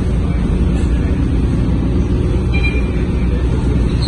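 Mercedes-Benz OC500LE city bus driving along, heard from inside the passenger saloon: a steady low engine drone mixed with road noise.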